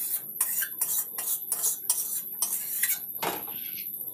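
Metal spoon clinking and scraping against a metal kadai and a steel bowl as the finished curry is spooned out of the pan: a quick run of clinks, with a longer scrape a little over three seconds in.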